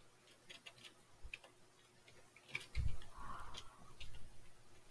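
Computer keyboard keys clicking softly at an uneven pace as a short phrase is typed, with a brief muffled thump about three seconds in.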